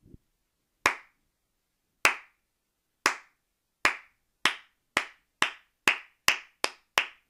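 One person's hand claps in a slow clap that speeds up: about a dozen sharp claps, starting about a second apart and quickening to about three a second near the end.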